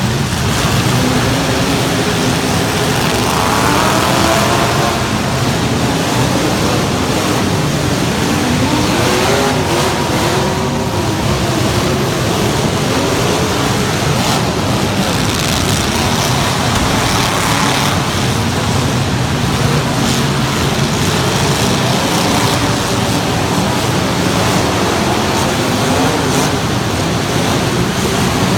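Loud truck engines running steadily, with the pitch of an engine rising and falling several times as it revs.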